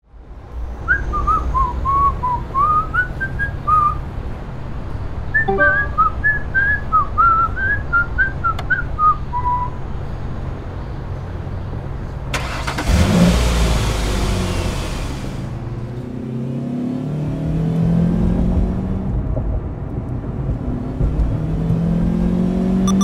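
A whistled tune over a low steady car engine hum, then a burst of rushing noise about three seconds long, after which the engine note rises as the car accelerates.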